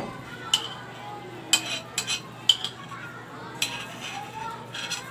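A small utensil scraping and clinking against a ceramic bowl as leftover dipping sauce is scraped out into a small container, in about five sharp clinks spread over a few seconds.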